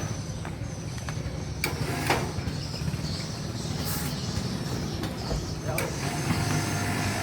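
Steady low machine hum with a few sharp clanks, over background voices.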